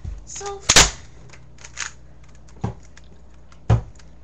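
A plastic Rubik's cube being handled and turned, with small clicks. There is one loud sharp knock about a second in and two more knocks later.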